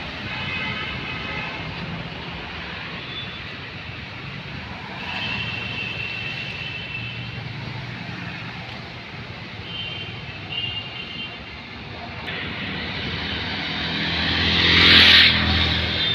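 Road traffic: a vehicle engine running steadily, with short steady horn honks sounding three times and a loud rush of a vehicle passing close near the end.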